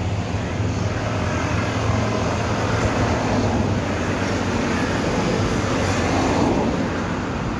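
Steady street ambience of traffic: a continuous low rumble and hiss with no distinct events standing out.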